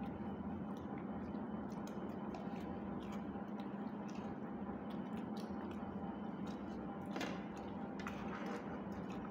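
People eating rice by hand from steel pots: soft chewing and squishing with scattered small clicks of fingers and food against the steel, one louder click about seven seconds in, over a steady low hum.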